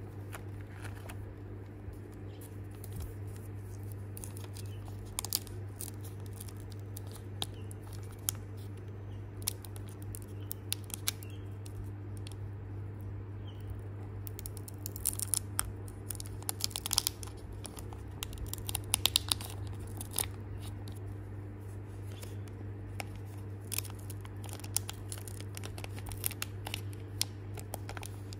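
Foil trading-card booster pack crinkling in the fingers and being torn open across the top by hand, in a run of sharp crackles that is densest midway. A steady low hum runs underneath.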